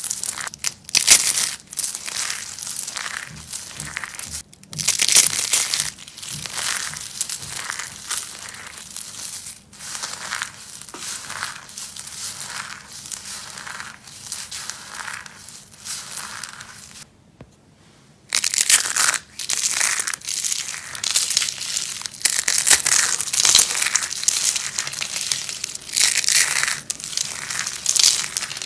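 Soap being crushed in an uneven run of crunches, broken by a pause of about a second roughly two-thirds of the way through.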